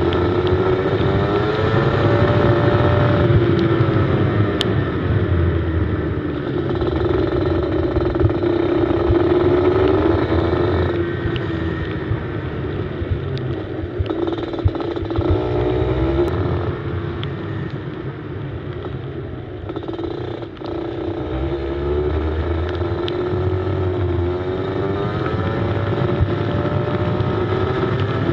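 Go-kart engine heard from an onboard camera, revving up along the straights and falling off into the corners, its pitch climbing and dropping several times over the lap. A low rumble of wind buffets the microphone underneath.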